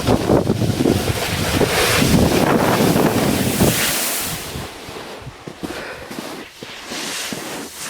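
Wind buffeting the microphone: a loud, rough rushing noise that eases off after about four seconds.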